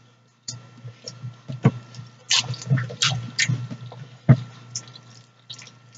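Wet chewing and lip-smacking sounds of a person eating cheesy noodles, irregular and close, with a few sharp clicks, the loudest about a second and a half in and again past four seconds.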